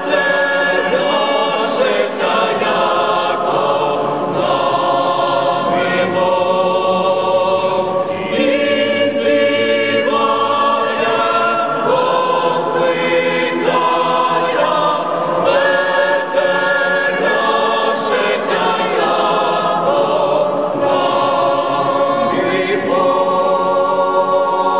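Mixed choir of men's and women's voices singing a Ukrainian Christmas carol a cappella, in held chords with short breaks between phrases.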